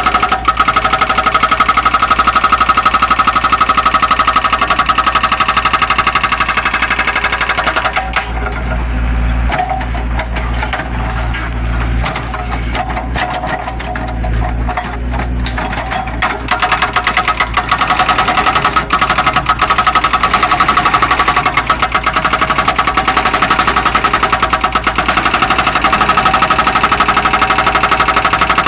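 Zoomlion excavator's diesel engine running close by with a fast, dense clatter and a steady high whine. For about eight seconds in the middle the clatter falls away and a deep rumble rises, then the clatter returns.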